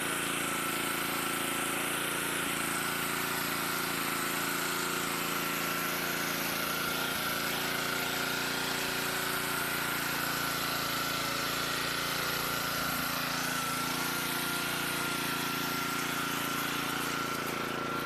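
Pressure washer running steadily: an engine hum with a thin high whine held at one pitch.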